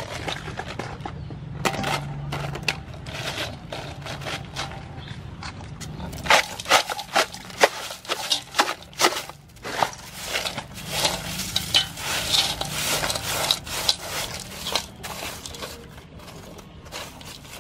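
Crushed ice being poured into a metal bowl over raw blue crab pieces: a dense, irregular clatter and crackle of ice pieces hitting the crabs and the bowl, heaviest from about six seconds in and easing off after about fifteen seconds into softer shifting of the ice.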